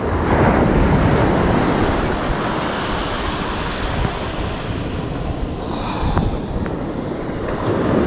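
Surf washing on the beach under steady wind buffeting the microphone.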